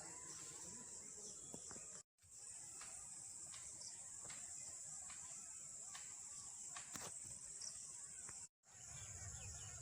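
Faint outdoor ambience of insects trilling steadily in a high continuous band, with a few faint ticks; the sound cuts out completely for a moment twice, about two seconds in and near the end.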